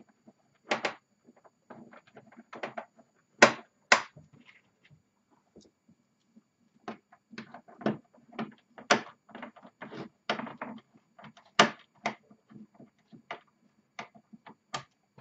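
Irregular sharp clicks and knocks, over a dozen spaced unevenly, the loudest a few seconds in and again near the middle. These are the handling noises of screws and a screwdriver as the end screws are fitted to a Roland D-50 synthesizer's case.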